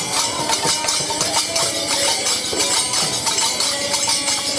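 Devotional bhajan music: small metal hand cymbals clashing in a steady rhythm over a hand drum, with a held melody line beneath.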